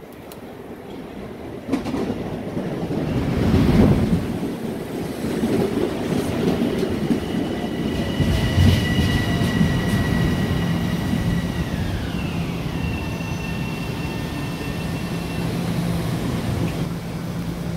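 Long Island Rail Road Bombardier M7 electric train arriving along the platform and slowing, its wheels rumbling loudly on the rails as the front passes. A two-note electric whine from the train's drive runs steadily, then drops in pitch about twelve seconds in as the train slows.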